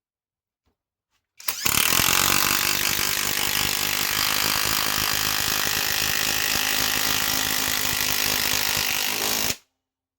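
Greenworks Pro IW5800 cordless mid-torque impact wrench hammering continuously while driving a large fastener. It starts about a second and a half in, runs for about eight seconds and stops abruptly.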